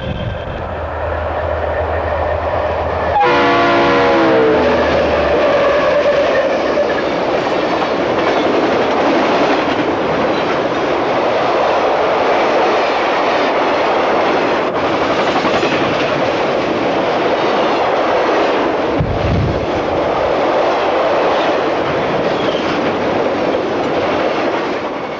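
Diesel freight train passing close by. About three seconds in, a short horn blast drops in pitch as the locomotive goes by. It is followed by the steady rumble and clatter of freight cars rolling past on the rails.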